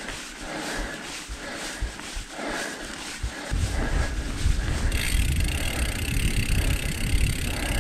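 Mountain bike being ridden on a dirt trail. Wind starts buffeting the microphone with a low rumble about three and a half seconds in, and a louder hiss of tyre and air noise joins about a second later.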